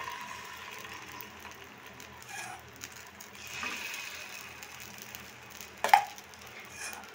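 Paniyaram batter sizzling as it is ladled into the hot, oiled wells of a nonstick paniyaram pan, swelling about halfway through. About six seconds in, the ladle knocks once against the pan.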